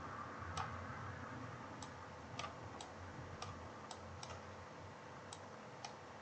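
Faint computer mouse clicks, about nine of them at uneven intervals, over a low steady hiss of room noise.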